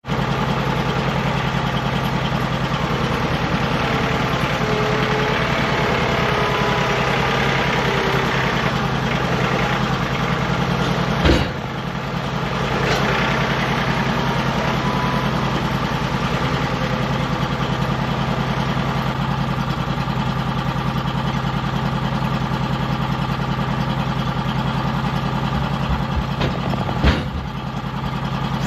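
An engine idling steadily, with a sharp knock about eleven seconds in and another near the end.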